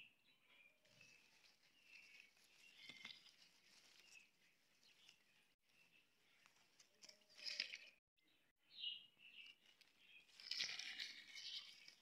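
Faint rustling and crackling of leaves and a dry-grass bird's nest being handled by hand, louder about seven and a half seconds in and again near the end, with a few short high chirps.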